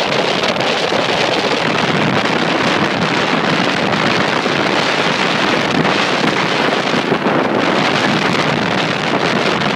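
Wind buffeting the microphone on a motorboat under way at speed, with the engine and the rush of water blended into one steady, loud noise.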